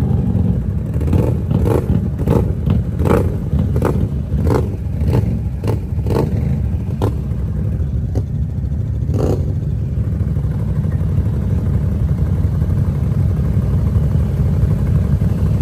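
ATV engines running with a steady low rumble, with a quick irregular string of sharp knocks in the first six seconds and one more a few seconds later.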